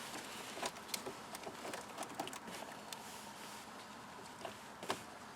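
Faint scattered clicks and taps of metal battery-terminal parts and hand tools being handled as the positive battery connector is taken off, with one sharper click near the end.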